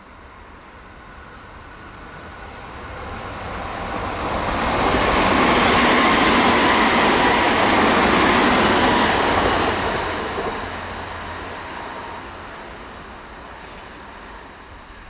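Nankai 50000 series Rapi:t β limited express train passing through a station at about 90 km/h without stopping. Its rail and running noise builds for a few seconds, holds loud for about five seconds, then fades away, with a faint whine through the loudest part.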